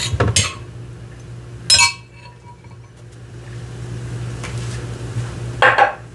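Kitchenware clinking as utensils and dishes are handled and set down. There are a few sharp clicks at first and one ringing clink about two seconds in, over a steady low hum.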